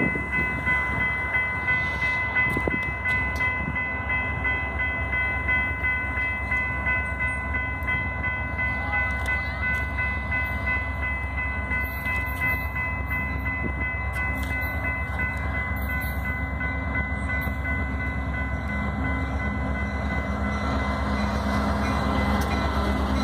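Diesel freight locomotives approaching, with a steady low rumble that grows louder as the train nears and passes in the last few seconds. Steady high-pitched tones ring throughout.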